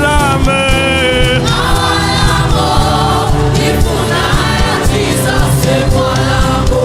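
Gospel worship music: a choir and singers holding and bending long notes over a steady live band.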